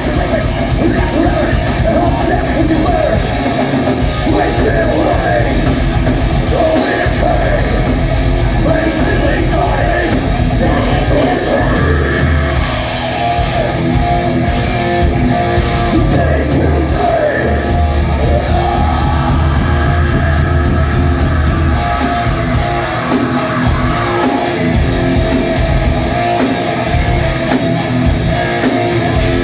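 Live heavy rock band playing loud, with distorted guitar, bass and drums under sung and shouted vocals, in the echo of a large hall.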